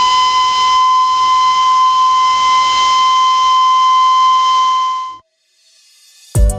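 Darjeeling Himalayan Railway toy train's whistle blowing one long, steady high note over a hiss, cut off abruptly after about five seconds.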